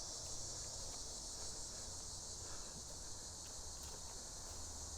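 Steady high-pitched chorus of crickets, with a few faint ticks and rustles over it.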